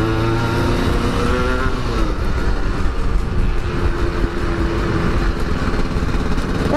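Motorcycle engine running under way, its pitch climbing over the first second and a half, dropping at about two seconds, then holding steadier, under heavy wind rumble on the microphone.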